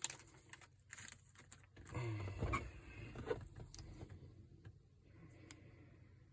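Small metal clicks and rattles from a padlock and lock picks being handled, busiest about two seconds in and then trailing off to a few isolated clicks.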